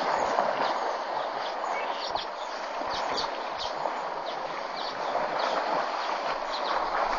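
African elephants wading and playing in a shallow waterhole: a steady sloshing wash of water with short, irregular high splashes and ticks, a few a second.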